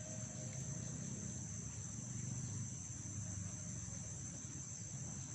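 Crickets trilling steadily in one high, continuous note, with a faint low background hum beneath.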